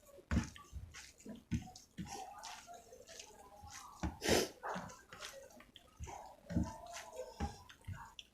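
Close-up wet eating sounds: chewing and lip-smacking on rice, chicken and gravy, in irregular squelches and clicks, the loudest about four seconds in.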